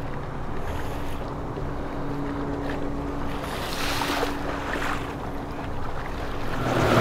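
A motor yacht's engines running with a low, steady hum as it cruises past, with the rush of its churning wake on the water. The rushing swells for a second or so around the middle.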